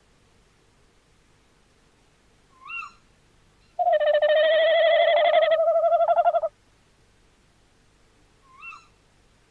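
Tawny owl calling: a short call swooping up and down in pitch, then a long, loud, quavering hoot lasting nearly three seconds, then the short call again near the end.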